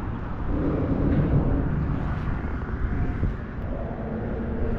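Wind buffeting the microphone: a steady low rumble with no clear tones or knocks.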